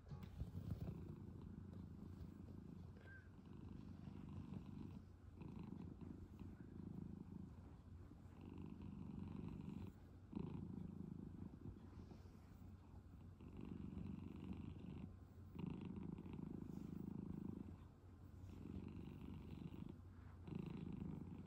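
Senior brown tabby cat purring while being stroked: an affectionate purr that comes in pulses of about two seconds, one for each breath, with short breaks between them.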